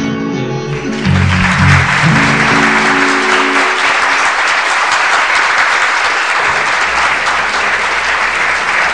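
The last chords of a live song ring out and fade as an audience breaks into applause about a second in; the clapping goes on steadily after the music dies away.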